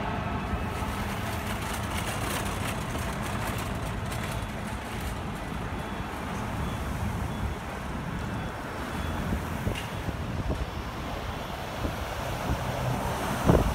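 City street traffic: cars and trucks running and passing, a steady rumble of engines and tyres. Near the end it grows louder as a vehicle passes close by.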